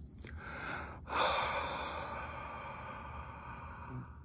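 One long, steady exhale blown into the mouthpiece of a handheld breathalyzer, starting about a second in and tailing off slowly over about three seconds.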